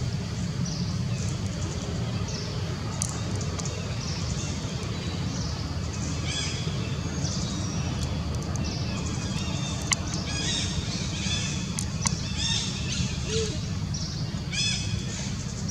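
Steady low outdoor rumble; from about six seconds in, a run of short, high-pitched animal calls comes several times a second and stops near the end.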